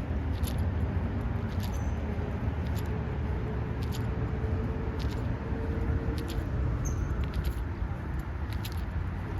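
Road noise of a car being driven, heard from inside the cabin: a steady low rumble with a few faint clicks.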